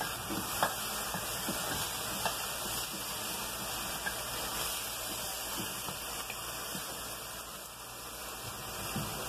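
Steady sizzling hiss of cow's foot pieces cooking in an aluminium pressure-cooker pot as a wooden spoon stirs them. A few light knocks of the spoon against the meat and pot come through.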